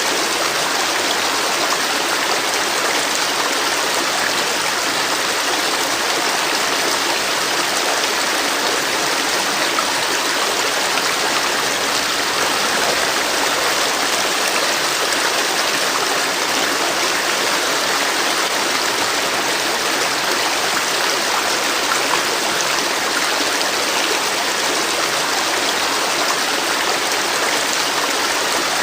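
A flowing river or stream rushing steadily over rocks, an even, unbroken wash of water noise.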